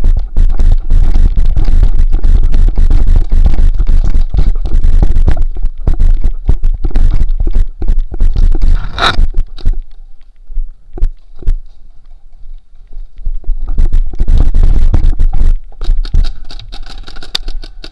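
Heavy rumble and rapid knocks on a helmet-mounted action camera as its wearer runs, loudest through the first half and again briefly about three-quarters through, with scraping as the camera rubs against a surface.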